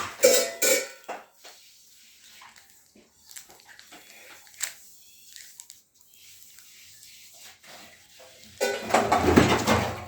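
A child handling a Britannia Treat biscuit packet and its plastic tray to get the biscuits out: scattered rustling and clicking, with louder bursts of handling noise at the start and near the end.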